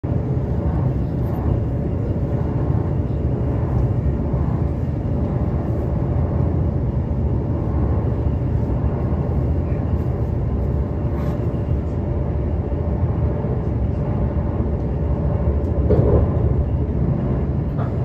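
Cabin noise of a moving electric train: a steady low rumble of wheels on the rails, with a faint steady whine on top. It swells briefly about sixteen seconds in.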